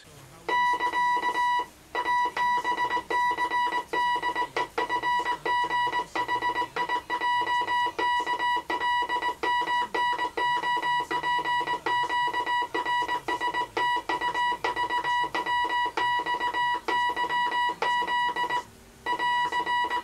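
Morse code sent by hand as a steady beeping tone at about 1 kHz, short dots and longer dashes grouped into letters, running through the alphabet without voice, with a click at each key stroke. The keying is done on a 1928 Elliott Brothers mahogany-and-brass straight key. There is a short break about two seconds in and another near the end.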